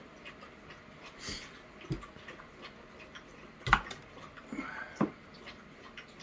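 Metal screw lid of a glass pickle jar being twisted open: small clicks and knocks, then a sharp click a little past halfway and another about a second later.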